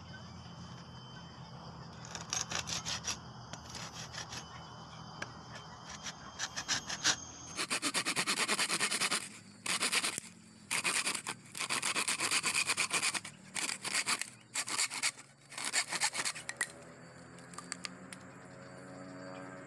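Pruning saw cutting through a bamboo pole in quick back-and-forth rasping strokes. The strokes start lightly about two seconds in, get louder and steadier about halfway through, and stop a few seconds before the end.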